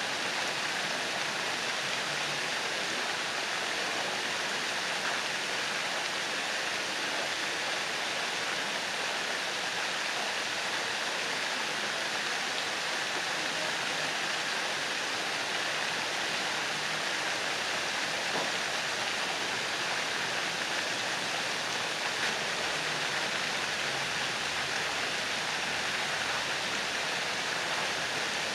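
Fountain jets falling steadily into a pond: an even, unbroken rush of splashing water.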